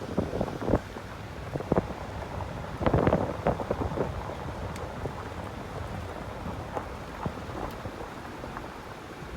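Wind buffeting the microphone in irregular gusts, with low rumbling thumps over the first few seconds that then ease into a steadier rush.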